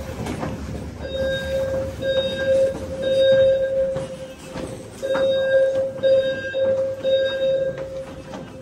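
Fire alarm low-frequency sounder (a Simplex TrueAlarm sounder base) sounding its low, buzzy tone of about 520 Hz in the temporal-three evacuation pattern: groups of three beeps with a pause between groups. Light knocks from the phone being handled mix in.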